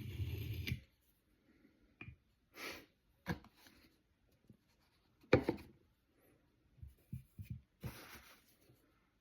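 A knife blade scraping along a natural sharpening stone stops just under a second in. It is followed by scattered handling sounds: light taps, brief rubs, and one sharp knock about five seconds in.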